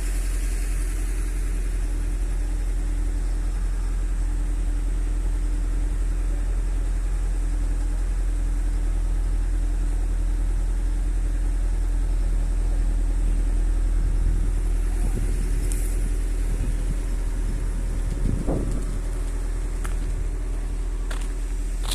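An engine running steadily with a low rumble and a steady hum. About eighteen seconds in there is a brief louder sound, and a couple of clicks come near the end.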